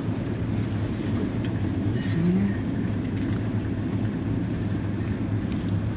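Supermarket refrigerated display case running with a steady low hum.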